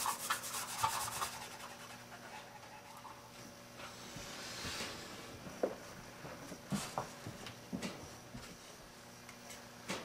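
Hands pressing and rubbing double-sided tape onto a small control-panel faceplate. There is a scraping, rubbing sound in the first second or so, then faint handling with a few light clicks and taps.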